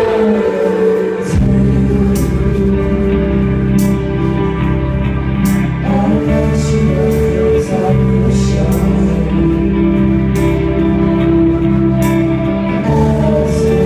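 Rock band playing a slow song live: sustained electric guitar chords over bass and drums, with a cymbal struck about every second and a half to two seconds. The bass and drums come in fully about a second in.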